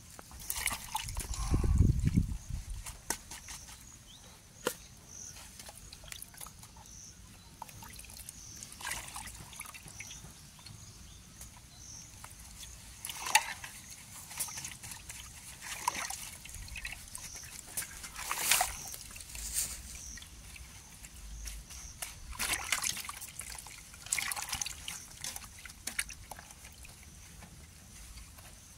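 Water sloshing and trickling in short, irregular splashes, with a low rumbling bump near the start as the loudest moment.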